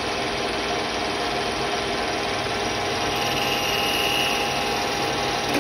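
EMCO lathe running steadily while a parting tool cuts through spinning white Delrin stock to part off a ring. A faint high whine comes in for about a second past the middle.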